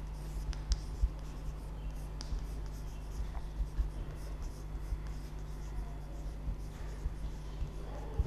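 Chalk writing on a blackboard: scratchy strokes with sharp taps as the chalk meets the board, over a steady low hum.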